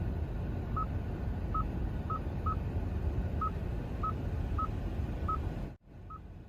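A run of short electronic beeps, all on one high pitch and spaced unevenly, about a dozen in all, over a steady low rumble. Sound cuts out abruptly near the end, then the beeps resume more faintly.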